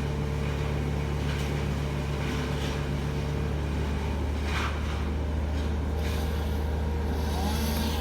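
A large engine running steadily with a low, even hum, with a few brief rustles or scrapes over it.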